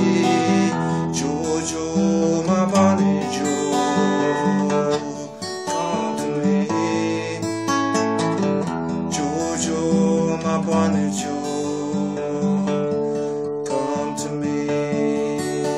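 Solo acoustic guitar, strummed chords in a steady pattern without vocals: the instrumental outro of the song.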